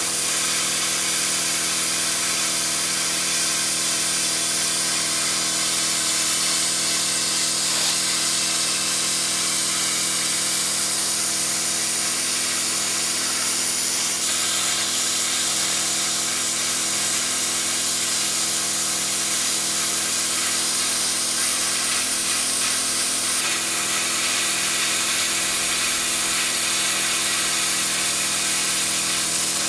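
Inexpensive handheld plasma cutter running and cutting metal: a steady, loud hiss with a constant buzzing tone underneath, unbroken throughout.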